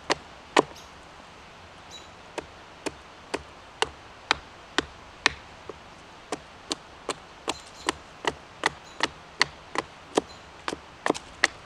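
Hatchet chopping into a branch stood upright on a wooden chopping block. Sharp separate knocks, about two a second, with a short pause after the first two strikes and quicker strokes near the end.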